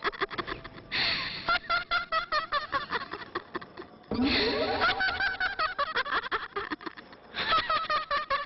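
Eerie laughter from a film sound track, in three loud bursts about a second, four seconds and seven seconds in, over a fast clicking that runs throughout.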